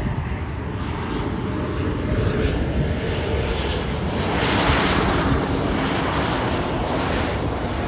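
Jet airliner's engines running as it passes: a low rumble with a faint steady hum, the rushing noise swelling about four and a half seconds in.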